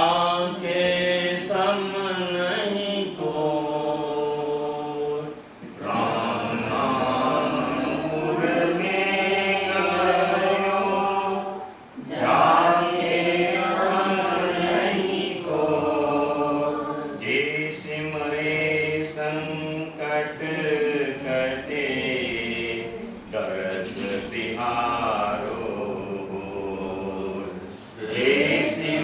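Voices chanting a Hindu devotional bhajan in long drawn-out sung phrases, with short breaks about six and twelve seconds in and near the end.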